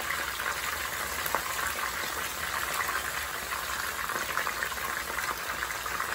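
Pandan-leaf-wrapped chicken pieces deep-frying in hot canola oil in a wok: a steady, dense sizzle and bubbling of the oil as more pieces are lowered in with tongs.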